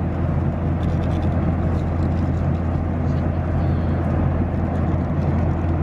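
Steady cabin drone of an airliner in flight: a constant low engine hum under even air noise. A few faint crinkles of a foil meal-tray lid being pierced and peeled with a plastic knife.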